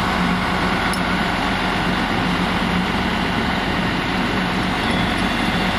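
Heavy engine of tree-removal equipment running steadily, with a low hum that holds one pitch throughout.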